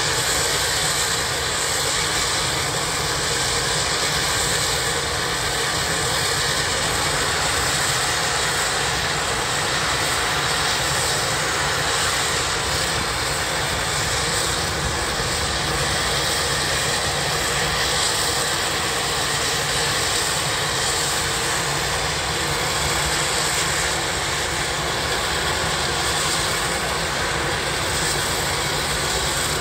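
Steam shovel's exhaust rushing steadily out of its smokestack as the engine is worked to throw sparks: an even noise with no clear beat.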